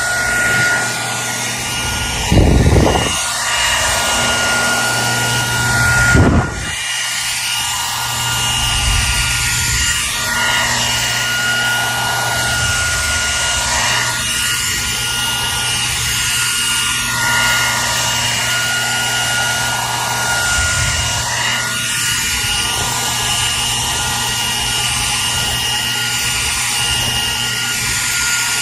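Hair dryer running steadily: a constant rushing whir with a thin high whine over a low motor hum. There are two brief low thumps in the first several seconds.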